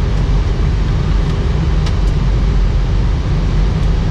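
Steady flight-deck noise of an Airbus A319 on approach: a constant rumble of airflow and engines heard inside the cockpit, even in level throughout.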